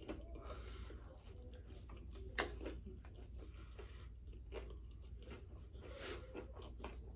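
Close-miked chewing and mouth noises of a person eating breakfast food, with a sharp click about two and a half seconds in, over a low steady hum.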